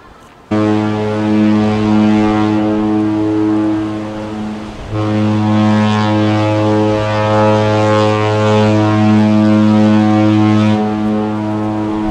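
Cruise ship's horn sounding on leaving port: a loud, deep, steady blast that starts abruptly, dips briefly about five seconds in, then sounds again and holds.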